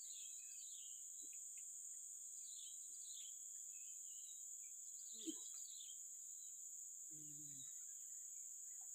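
Steady high-pitched drone of insects, with short descending bird chirps now and then and a single sharp click about five seconds in.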